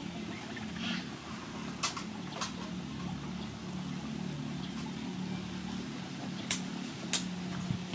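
A steady low motor hum, with a few sharp clicks scattered over it.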